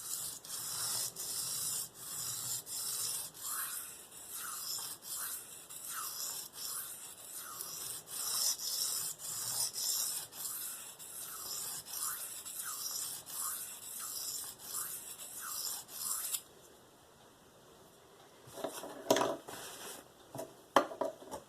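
A steel knife blade being stroked back and forth on a diamond sharpening stone: a gritty scraping, about one and a half strokes a second. The strokes stop about three-quarters of the way in, followed by a few light clicks.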